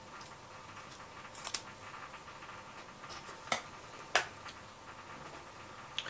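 Faint handling sounds: a short rustle and then two soft clicks as a small strip of paper is handled and set down on a cloth-covered table, over quiet room tone.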